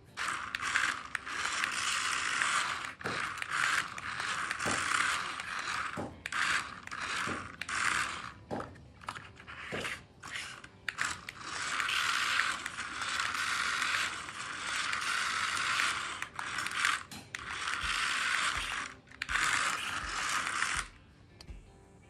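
Small electric motor and plastic gearbox of a toy remote-control excavator running in spurts of one to several seconds with short gaps, starting and stopping as it is driven. The noise stops about a second before the end.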